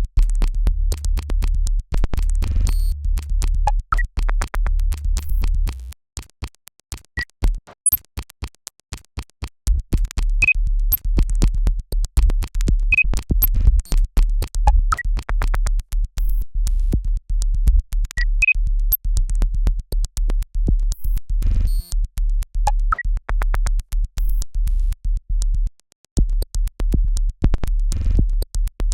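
Electronic synthesizer music with a steady deep bass under rapid clicking pulses. The bass drops out about six seconds in, leaving sparse clicks, and returns about ten seconds in. There is a brief break near the end.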